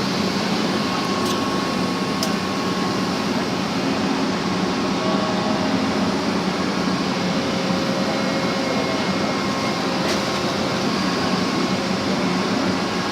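A backhoe's engine running steadily at a constant pitch, with a few faint clicks.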